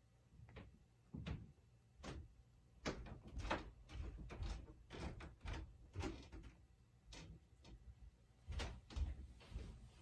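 Quiet, irregular knocks, taps and rubbing as a stretched canvas is tipped from corner to corner and handled with gloved hands, about a dozen small knocks spread through.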